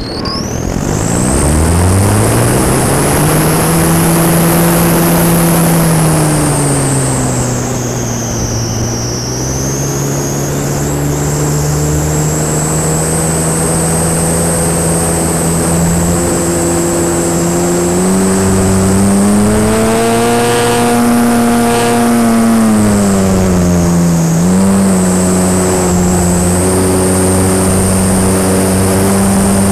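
Beast 60E electric RC aerobatic plane's motor and propeller heard from on board, with a rushing air noise. The pitch climbs over the first two seconds, sags, then rises and falls again as the throttle changes, with a high thin whine running above it.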